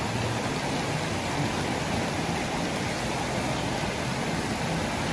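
Shallow creek flowing steadily over rocks and small cascades.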